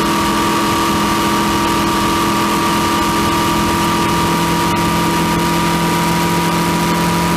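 Honda CB500X's parallel-twin engine running steadily with a constant whine from the drivetrain. This is the noise that has appeared since the chain and sprocket kit was changed.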